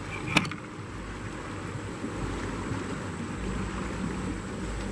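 Wind buffeting the microphone over a steady wash of choppy lake water around a kayak, with one light knock about half a second in.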